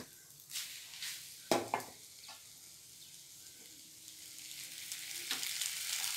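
Goat intestine fry in a metal kadai, with a metal ladle scraping and stirring it a few times in the first couple of seconds. Then the fry sizzles on the heat, growing louder toward the end.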